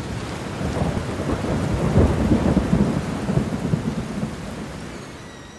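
Thunderstorm: steady rain with a low rolling rumble of thunder that swells about two seconds in and then slowly fades.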